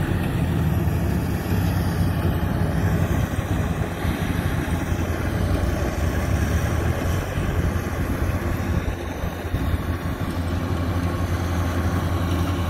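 Kubota DC-105X rice combine harvester running steadily while harvesting: a constant diesel engine drone with the clatter and rush of its cutting and threshing machinery.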